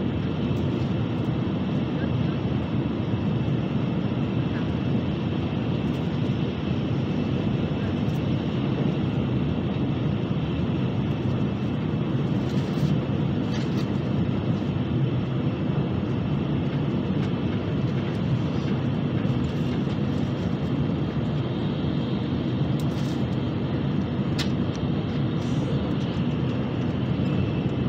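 Steady rumble and rush of a Nozomi Shinkansen bullet train running at high speed, heard from inside the passenger cabin.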